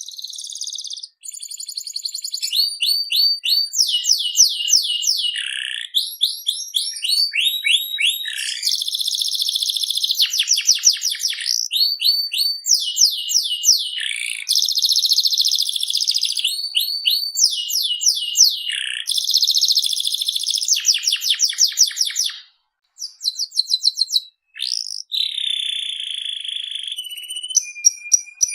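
Domestic canary in full, continuous song. It sings fast runs of repeated down-sweeping notes that alternate with buzzy rolling trills, with a brief pause near the end.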